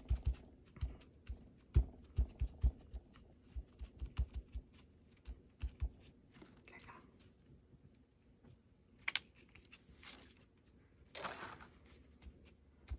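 Ink blending sponge dabbed against a paper stencil lying on a table: a quick run of dull taps, several a second, for about the first six seconds. Near the end come a few short rustles and a scrape of paper as the stencil is peeled away.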